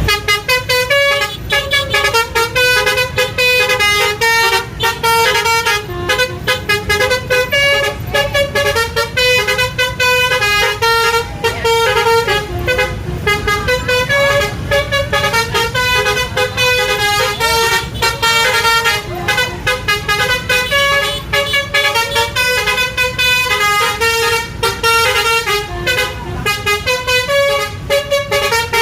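A bus's Basuri telolet horn, a multi-tone musical horn, playing a fast tune of short notes that step up and down in pitch, with only brief gaps.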